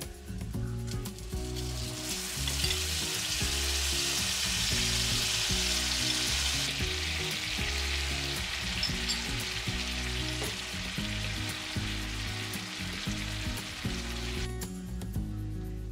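Spam slices sizzling in a frying pan; the sizzle jumps up sharply about two seconds in as sauce hits the hot pan, stays loud and bubbling, eases slightly midway and cuts off near the end. Soft background music plays underneath.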